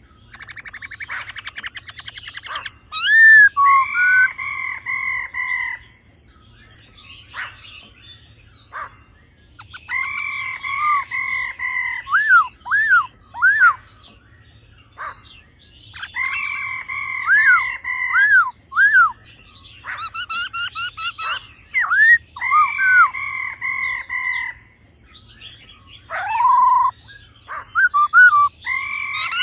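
Black-throated laughingthrushes: a rapid rattling call at the start, then loud song phrases of rich, whistled notes repeating about every six seconds, with quieter chattering between phrases.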